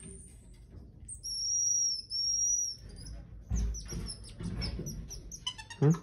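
Geoffroy's marmoset giving high, drawn-out whistled phee calls: two long, level notes starting about a second in. After them come some scuffling noises and a short loud sound near the end.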